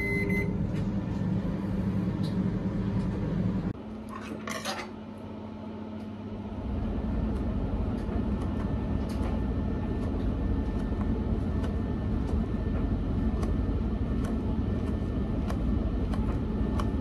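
Microwave oven keypad beeps once, then the oven runs with a steady low hum that cuts off suddenly about four seconds in. After a brief noise, a steady low hum returns, with faint light taps as a knife scores a banana on a wooden board.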